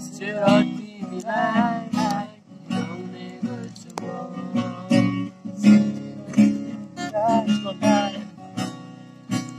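Acoustic guitar strummed in a steady rhythm, with a man's voice singing short wavering phrases over it near the start and again towards the end.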